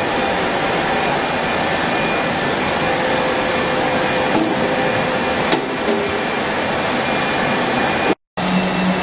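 Soap-making production machinery and conveyor running: steady loud machine noise with faint hum tones and a few light clicks. The sound cuts out completely for a moment near the end, then resumes with a deeper hum.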